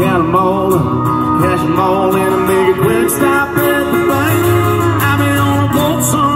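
Live country music through a PA: acoustic guitar and keyboard playing a mid-tempo song.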